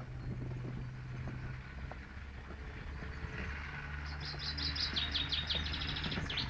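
A songbird singing a quick run of high chirps and trills from about four seconds in, over a steady low rumble.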